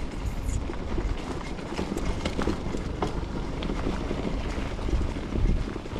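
Mountain bike rolling over a rough dirt and gravel trail: tyre rumble with many scattered clicks and rattles from stones and the bike, under a low rumble of wind on the microphone.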